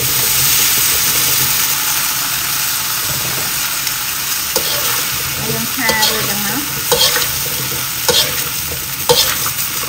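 Cut water lily stems frying with a steady sizzle in a hot metal wok as they are stir-fried with lobster. From about halfway on, a metal ladle clacks and scrapes against the wok roughly once a second.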